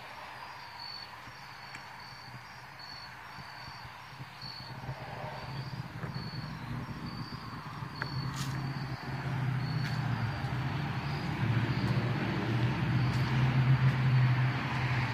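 Crickets chirping, a high chirp repeating about twice a second. A low steady hum grows louder through the second half.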